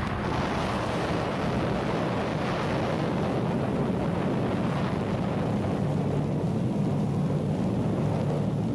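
Jet aircraft engine noise: a deep, steady rushing sound with a low hum.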